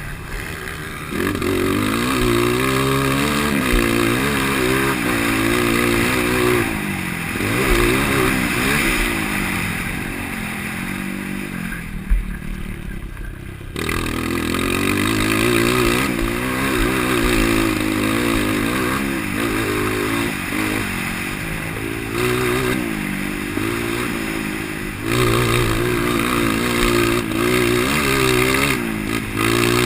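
A 230 cc single-cylinder motocross bike with an aftermarket Doré header and muffler, ridden hard, revving up and down again and again. About twelve seconds in the throttle shuts for a moment and there is a sharp knock, then the engine revs hard again.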